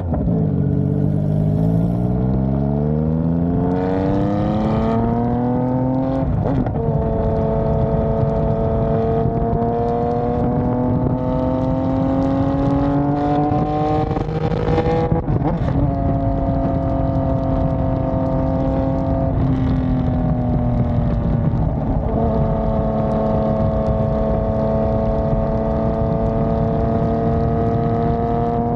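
Yamaha MT-09 inline three-cylinder engine through an exhaust with its end tip removed, running on only the bare pipe while the bike accelerates through the gears. The pitch climbs for the first few seconds, drops at gear changes about six seconds in and again about halfway, dips once more, then holds fairly steady at cruise.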